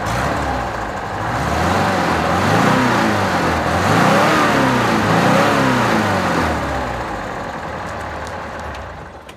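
1982 Volkswagen T25's 2-litre air-cooled flat-four engine running and being revved several times, the pitch climbing and falling with each blip, then easing back down and fading near the end.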